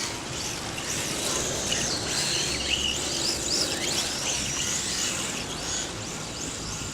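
Electric motor of an RC drift car whining, its pitch rising and falling again and again with the throttle, over a steady hiss.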